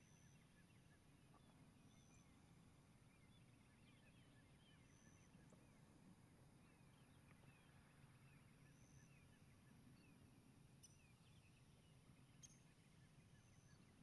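Near silence: faint outdoor ambience with distant birds, a short high note repeated every few seconds over many soft chirps, above low background noise. Two faint clicks come in the last few seconds.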